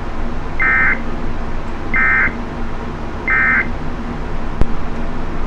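Three short, identical bursts of warbling digital data tones, about 1.3 seconds apart: the Emergency Alert System's SAME end-of-message code that closes a warning broadcast. A steady hiss and hum from the receiver lies underneath, and a sharp click comes about four and a half seconds in.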